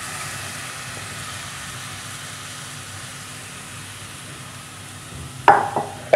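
Yogurt-marinated chicken drumsticks frying in a steel pot with a steady, even sizzle. About five and a half seconds in, a metal spoon clanks sharply against the pot and rings briefly.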